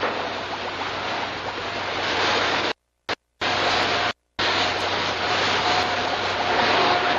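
A steady hissing rush of noise with a low hum beneath it, on an old film soundtrack. It cuts out to dead silence twice for a fraction of a second, about three and four seconds in, and a faint steady tone comes in near the end.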